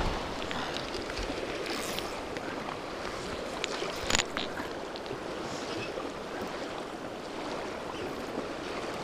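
Steady rush of river water around a drifting boat on whitewater, with a few small clicks and knocks, the sharpest about four seconds in.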